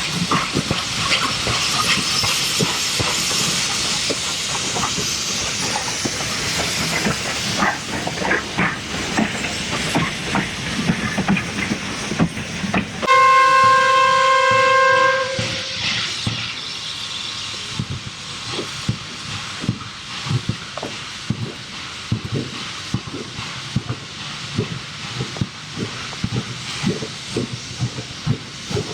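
Steam locomotive releasing steam with a steady hiss. About halfway through it gives one steam whistle blast lasting about two seconds. Then the train moves with a run of rhythmic beats and rail clatter.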